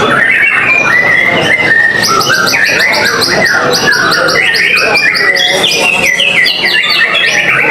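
White-rumped shamas singing loudly in full song, several at once, with varied whistled phrases and a run of fast repeated trilled notes in the middle.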